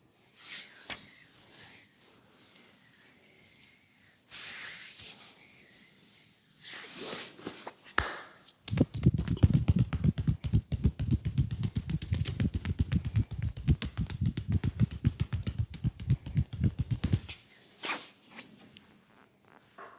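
Soft swishing of hands rubbing over oiled skin during a leg massage, then about nine seconds of rapid percussive slapping on the leg, around eight to ten strikes a second, before it stops and the rubbing resumes.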